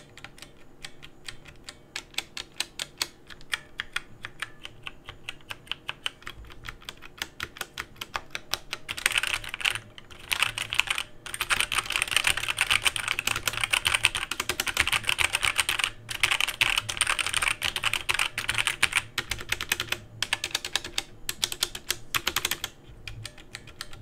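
Keys of a Dierya 60% mechanical keyboard with Outemu Brown tactile, non-clicky switches being pressed: single keys struck one at a time at first, then fast continuous typing from about nine seconds in, with a few short pauses. A smooth, quiet clacking with no click.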